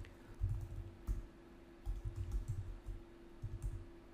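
Computer keyboard typing: irregular short keystrokes, with a faint steady electrical hum under them.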